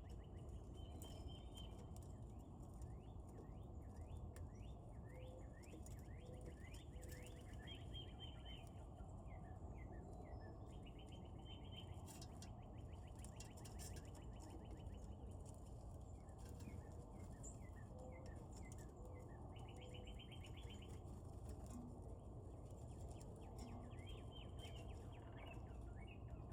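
Wild songbirds singing: bursts of rapid trills and series of short down-slurred chirps repeating throughout, over a steady low background rumble.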